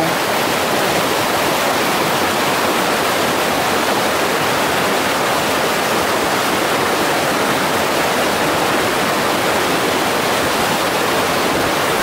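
Waterfall: falling water rushing in a loud, steady, unbroken noise.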